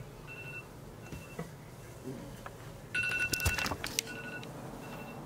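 Electronic alarm going off in repeating bursts of rapid high beeps, with one loud burst about three seconds in and fainter snatches between. A few knocks and rustles come during the loud burst.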